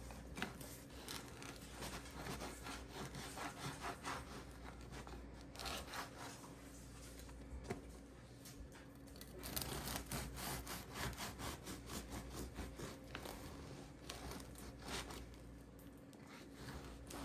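A serrated bread knife sawing back and forth through the crust of a Dutch oven loaf, in a long run of rasping strokes with a short lull about five seconds in.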